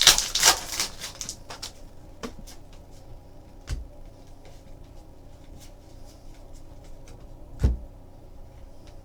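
Trading cards and packs being handled on a table: a rustling burst in the first second or so, then scattered light clicks and two dull thumps about four seconds apart.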